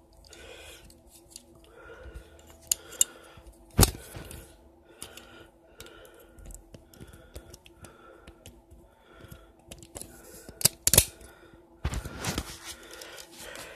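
Toy cap gun loaded with a plastic ring of caps: repeated small mechanical clicks from working the trigger and hammer, and several sharp cap cracks. One crack comes about four seconds in, two come in quick succession later on, and a cluster follows near the end.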